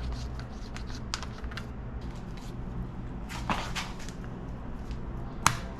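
Scattered light clicks and taps of hand tools and small metal parts being handled on a motorcycle engine's top end, with sharper clicks about three and a half seconds in and again near the end, over a low steady hum.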